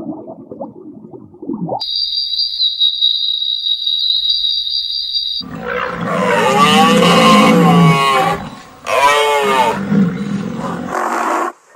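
A steady high whistling tone lasting a few seconds, then two long, loud animal roars whose pitch wavers up and down, separated by a short break.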